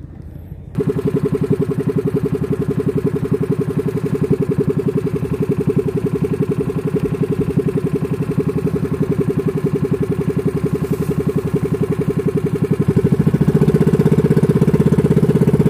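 A small outrigger boat's engine catches about a second in, after refusing to start, and settles into a steady, evenly pulsing run. It gets louder near the end as it is opened up and the boat gets under way.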